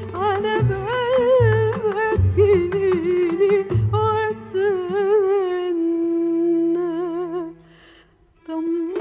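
Arabic song: a woman's voice sings long, ornamented lines with a wavering pitch over low bass notes. The music drops out for under a second near the end.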